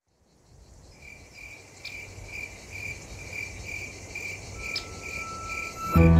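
Crickets chirping in a steady rhythm of about two chirps a second, fading in from silence. Piano music comes in loudly at the very end.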